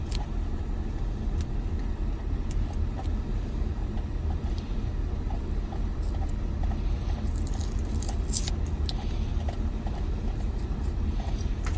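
Steady low rumble with faint scattered clicks and a few short scrapes, a cluster of them about seven to eight seconds in, from hand work on the car's clutch line.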